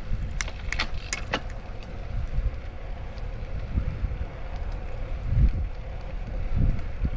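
Wind buffeting the microphone in a low, uneven rumble, with a few sharp clicks in quick succession about half a second to a second and a half in.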